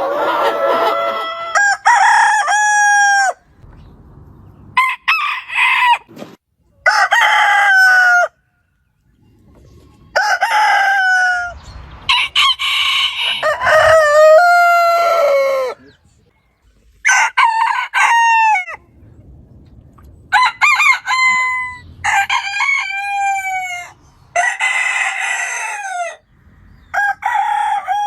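Roosters crowing, one crow after another, about ten crows in all. Each is a rising-then-falling call of a second or two, with short pauses between them.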